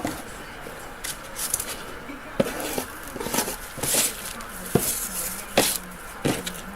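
Items and a cardboard box being handled and moved on a table: irregular taps, knocks and rustles.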